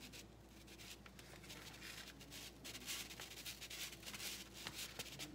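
Faint, uneven scratchy rubbing as a rubber-coated glove pinches and smooths green floral tape around a wooden skewer stem.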